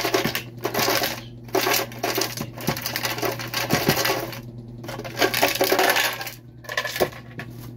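Ice cubes rattling out of a plastic container and clinking into a blender jar, in irregular bursts that thin out near the end.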